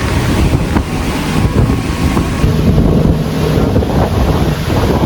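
Wind buffeting the microphone on a moving tour boat, over the boat's motor running and water rushing past the hull.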